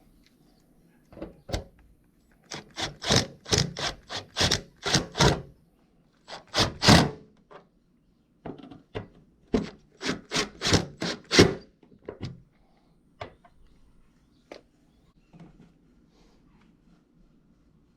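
Two runs of quick knocks and rattles, about three a second, with one loud knock between them and a few single clicks afterwards: hands working plastic and metal bumper parts on a car's front end.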